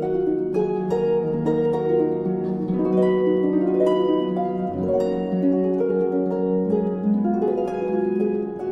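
Background instrumental music: a flowing melody of plucked string notes, harp-like.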